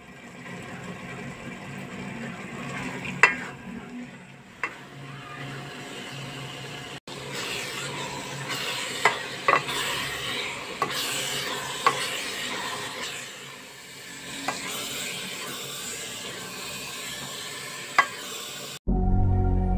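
Grated carrots cooking in a pot, stirred and scraped with a spoon, under a steady sizzle. About eight sharp clinks of the spoon against the pot's side ring out through it, the loudest about three seconds in and near the end.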